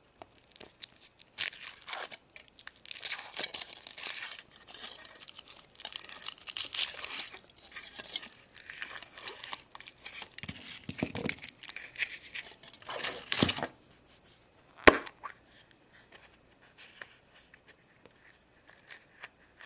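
Foil wrapper of a Kinder Surprise chocolate egg being torn off and crinkled by hand, in dense crackling bursts for about twelve seconds, followed by a single sharp click and then faint rustling.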